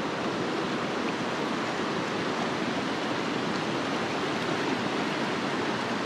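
Clear mountain stream rushing over rocks in a shallow riffle: a steady, even rush of water.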